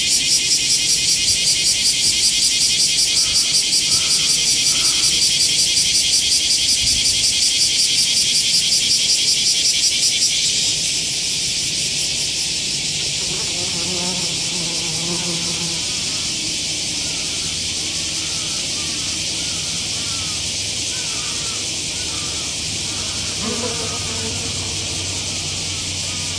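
A dense, high-pitched shrill of singing insects, fast-pulsing, that drops in loudness about ten seconds in and carries on weaker. A sand wasp's wings buzz as it flies in low at about 14 s, and again briefly near the end.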